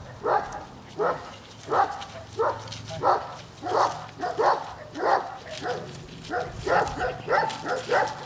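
Shepherd dog barking over and over at an even pace, roughly three barks every two seconds, with no pause.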